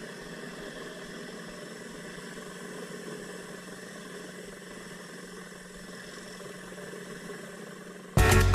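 Pressure washer's engine running steadily with a constant hum. Loud music cuts in suddenly near the end.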